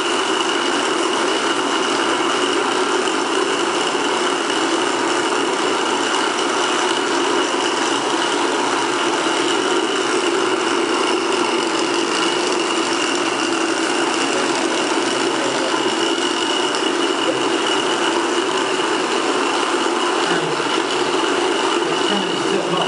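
Small battery-powered motors on several rubbish-built robots (drinks cans, jar lids, a plastic bottle, a cardboard box) running together, a steady whir with a low and a high tone over a rattling noise.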